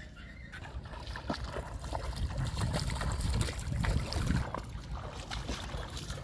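Bare feet splashing through shallow river water while wading, a run of sloshing splashes that is loudest in the middle.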